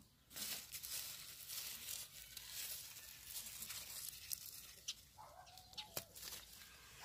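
Rustling of bean plant leaves and stems as a hand pushes through them to pick yellow wax beans, with a few sharp clicks in the second half.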